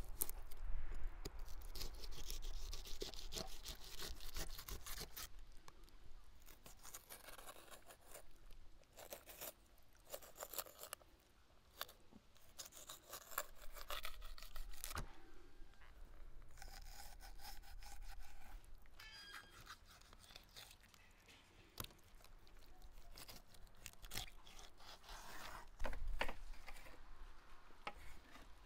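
A kitchen knife cutting and scraping through a large raw beluga sturgeon on a wooden table: repeated soft scrapes and small clicks as the blade works along the backbone and through the flesh.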